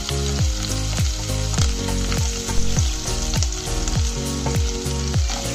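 Ginger-chilli paste and curry leaves sizzling in hot oil in a wok, a steady frying hiss. Background music with a steady beat of about two low thuds a second plays along with it.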